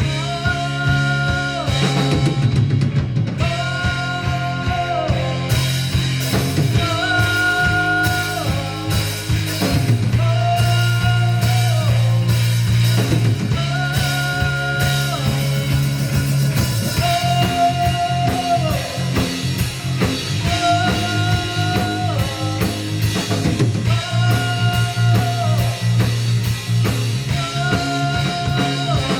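Live rock band playing over a steady drum-kit beat, with a melodic line of held notes repeating about every two seconds.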